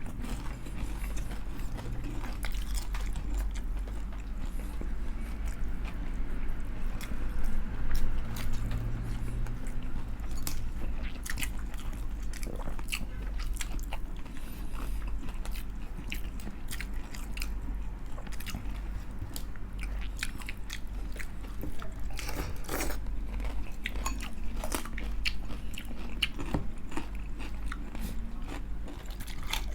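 Close-up chewing and crunching of crispy fried chicken skin: many sharp, irregular crunches between softer chewing, over a low steady hum.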